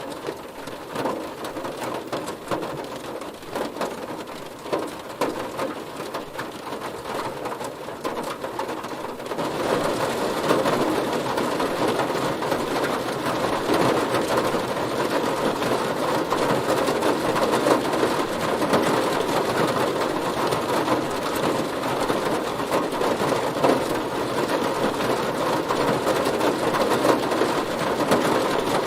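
Heavy rain pelting a car's roof and body: a dense, steady patter of drops that grows heavier and louder about nine or ten seconds in.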